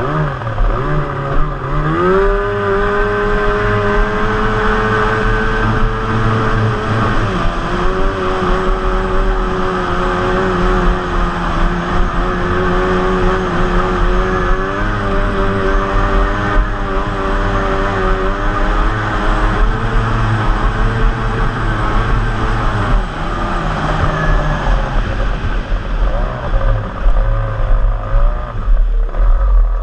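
Yamato racing outboard motor driving a small hydroplane at speed. Engine speed climbs about two seconds in, holds high with small surges and a dip around seven seconds, then falls away near the end. Water and wind rush underneath the engine throughout.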